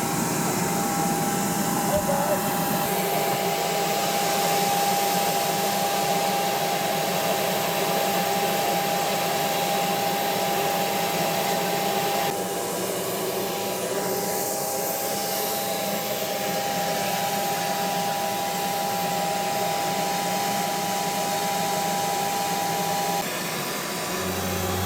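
Steady mechanical drone, like a machine blowing air, with a steady high whine over it that stops near the end.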